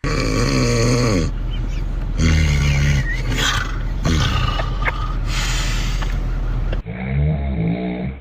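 Loud snoring in a run of long, rough, pitched snores, one after another. Near the end it cuts suddenly to a duller-sounding recording of another snore.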